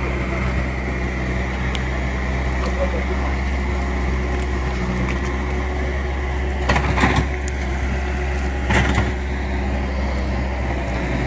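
A steady low engine-like hum, with two short bursts of noise about seven and nine seconds in.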